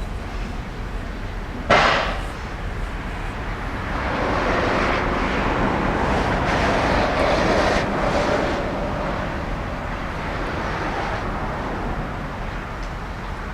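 Train running on the railway: a steady rumble, a single sharp bang a couple of seconds in, then a louder stretch of rolling noise with a faint steady tone before it eases off again.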